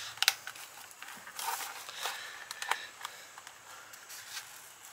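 DEI embossed aluminium heat-shield insulation crinkling as hands press and smooth it into a chrome heat shield, with a few sharp clicks in between.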